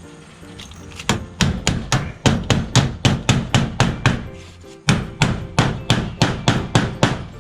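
Hammer driving nails with quick, evenly spaced blows, about three or four a second, in two runs with a short pause between them. Background music plays underneath.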